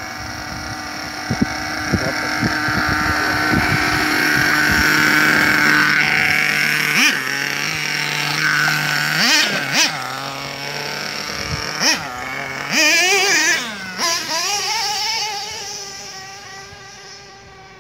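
A RedCat Earthquake 3.5 RC truck's 3.5cc two-stroke nitro engine runs at high revs as the truck is driven, with several quick throttle blips, the pitch rising and falling, between about seven and fourteen seconds in. It fades near the end as the truck drives off.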